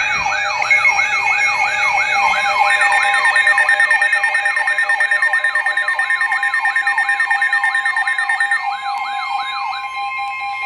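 Weather radio warning alert: a rapid rising electronic siren tone, about three or four sweeps a second, over steady tones. A steady attention tone near 1 kHz, NOAA Weather Radio's 1050 Hz warning alarm tone, comes in about two seconds in. The sweeps stop near the end while the steady tone runs on.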